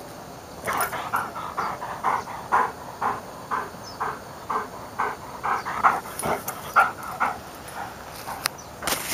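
Greyhound making short rhythmic sounds through its open mouth, about three a second, starting about a second in and keeping on until near the end.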